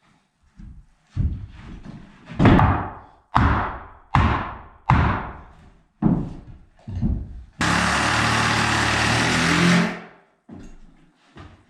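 Hammer blows on wood, about one a second, each dying away quickly. Then a power tool runs steadily for about two seconds, starting and stopping abruptly.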